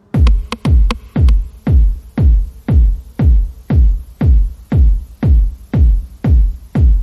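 Electronic intro music built on a heavy, deep kick drum beating about twice a second, each hit dropping quickly in pitch, with a few sharp clicks over it in the first second.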